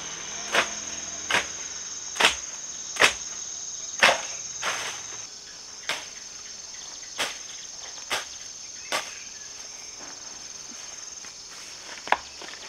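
A series of sharp knocks, roughly one a second, with a gap of a few seconds before a last knock near the end, over the steady high chirring of insects.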